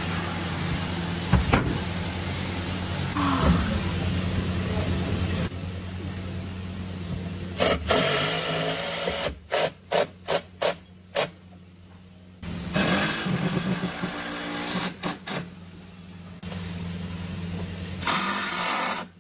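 A steady machine hum in the first half. Then a cordless drill driving screws into a wooden frame in short trigger spurts, five or six in quick succession about ten seconds in, more around fifteen seconds, and a longer run near the end.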